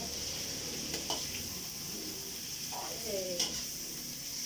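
Meat stir-frying in a wok on a gas stove: a steady sizzle as a spatula stirs it, with a couple of sharp scrapes of the spatula against the pan.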